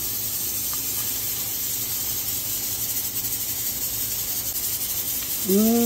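A steady, even hiss with no rhythm or change. A short voiced sound comes near the end.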